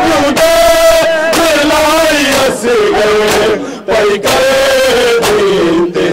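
A group of men chanting a noha in unison in a slow, held melody. Sharp slaps of hands beating on chests (matam) come about once a second.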